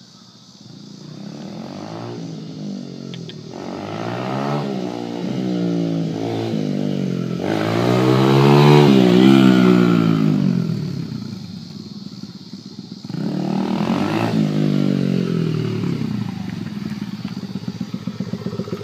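Honda XR100R dirt bike's small single-cylinder four-stroke engine revving up and backing off several times as it rides by, its pitch climbing and dropping with each pull. It is loudest about halfway through as it passes close, surges again a few seconds later, then runs close by near the end.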